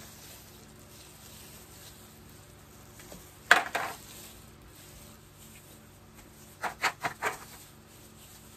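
Sharp clacks of small plastic puto cups and a spatula being handled on a metal tray while steamed pichi-pichi is unmolded. There is one loud double knock about three and a half seconds in, then four quick knocks close together near seven seconds.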